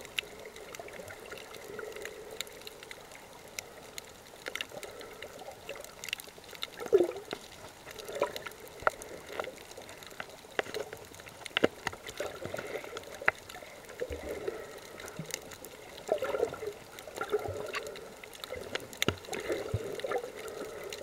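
Underwater water sound on a coral reef: a gurgling wash that swells and fades every second or two, with scattered sharp clicks throughout.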